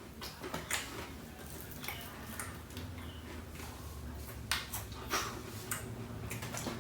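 Close-up chewing and mouth smacks of someone eating shrimp and chicken, with irregular small clicks and wet smacks.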